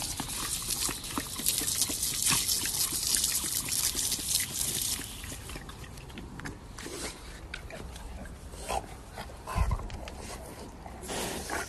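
Garden hose spraying water, a loud hiss for about the first five seconds that then turns quieter and patchier, with splashing and a dog's noises as it bites at the water stream.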